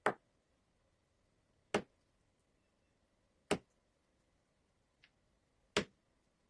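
Slime being played with by hand, making four sharp pops about two seconds apart, with a couple of fainter clicks between them.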